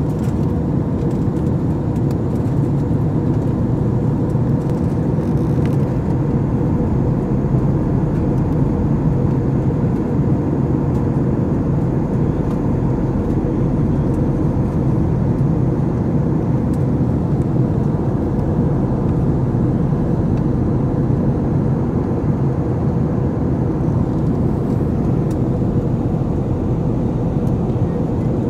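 Steady cabin noise inside an airliner in flight: the low, even rush of engines and airflow, with a faint steady tone above it.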